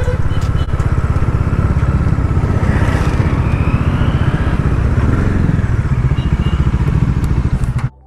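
Bajaj Dominar 400's single-cylinder engine running steadily as the bike is ridden, a fast, even beat of low firing pulses. It cuts off abruptly near the end.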